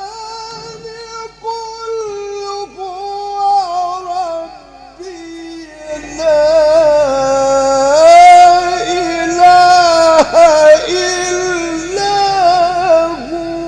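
A male Quran reciter's voice drawing out a long melodic phrase in the ornamented mujawwad style, with held, wavering notes. About six seconds in the voice climbs higher and gets louder.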